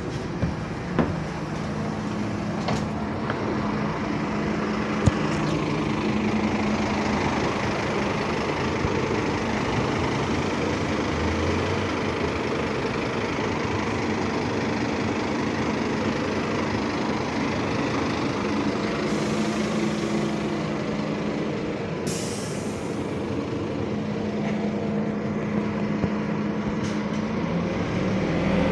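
Scania double-decker bus engine running steadily at a stop, a low even hum. About 22 seconds in comes a short hiss of compressed air.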